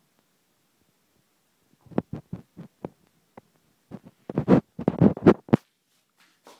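An irregular run of about fifteen soft thumps and knocks, starting about two seconds in and loudest just before they stop, close to the microphone.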